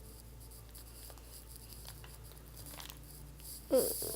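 Hands kneading and pulling freshly activated fluffy slime: faint sticky crackling as it stretches and tears, with one brief louder sound with a bending pitch near the end.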